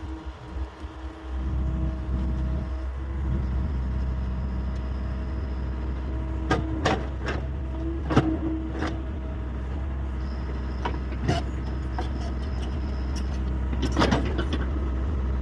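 Hyundai 85A excavator's diesel engine running steadily under work. Sharp clanks and knocks from the bucket and arm digging earth come in a cluster from about six to nine seconds in, then again once near eleven seconds and once near fourteen.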